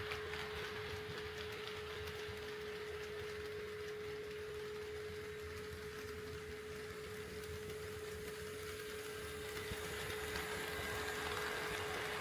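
HO-scale model train running on the layout track: a small-motor whir with faint wheel clicks over a constant steady hum, dropping a little in the middle and growing louder again near the end.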